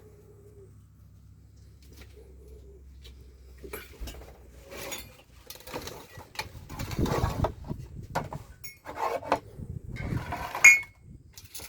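Irregular rustling and clattering, with one sharp metallic clink near the end.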